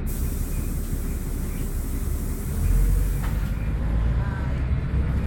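Single-decker diesel bus running, its engine and road rumble heard from inside the passenger cabin. The rumble swells for a moment around the middle. A steady hiss runs over the first three seconds or so, then stops.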